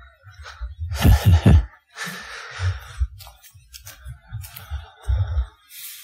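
Handheld outdoor recording: irregular low thumps and rustling, as of someone walking on a woodland path, with a short voiced sound, like a gasp or brief call, about a second in.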